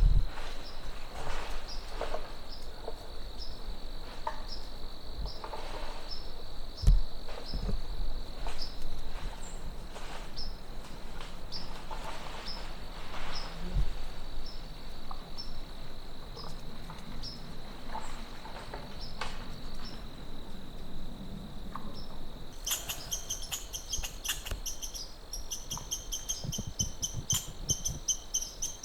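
Crickets chirping: a steady high drone with regular short chirps about twice a second, joined about 22 seconds in by a louder, faster pulsing trill. A few dull low thumps come in between.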